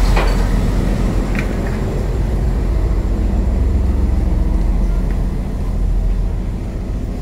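Steady low drone of a passenger ferry's engines, heard on board.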